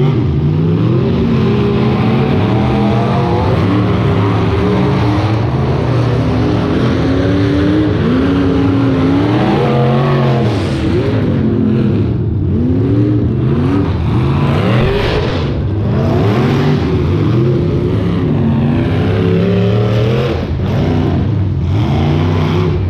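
Several demolition derby cars' engines revving up and down at once, loud and continuous, their pitches rising and falling as the cars accelerate across the dirt arena.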